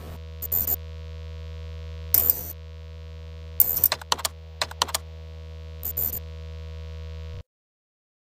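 Intro sound effect: a steady low synthesizer drone with several quick clusters of keyboard-typing clicks, cutting off suddenly about seven seconds in.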